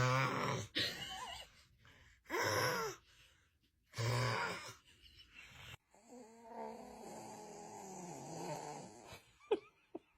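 A man snoring: loud snores at the start and again about four seconds in, with a shorter breathy snore between them. A quieter, longer wavering vocal sound follows in the second half, and two brief sharp sounds come near the end.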